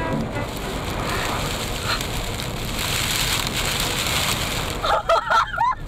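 Steady rush of wind and blowing dust against a car driving through a dust storm, heard from inside the car together with tyre noise, brightest about midway. Near the end, a few short wavering vocal cries break in.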